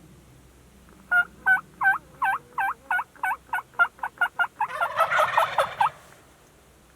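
Turkey yelping: about a dozen loud two-note yelps, roughly three a second and speeding up, running into a rapid, dense burst of calling for about a second near the end.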